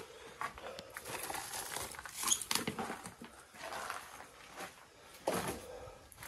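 Footsteps crunching and scuffing on gravel and loose stone rubble, at an uneven pace, with a heavier step about five seconds in.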